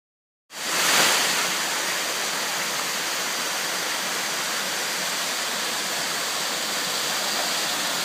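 Small waterfall splashing over rocks into a pool, a steady rush of falling water that starts about half a second in.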